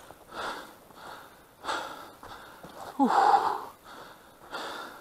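A person breathing hard, a loud breath about every second and a half. The loudest, a little past the middle, is a voiced exhale that falls in pitch.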